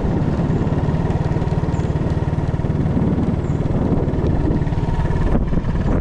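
Motorcycle engine running steadily as the bike cruises at an even pace, heard from the rider's seat.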